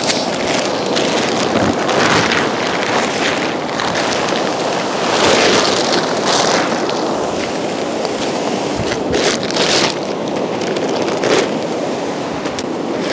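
Shallow stream rushing steadily over a stony bed, with wind on the microphone swelling every few seconds.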